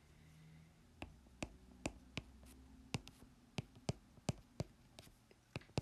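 Handwriting with a pen: a quiet run of sharp, irregular clicks, about three a second, as the tip taps down and lifts off the writing surface stroke by stroke.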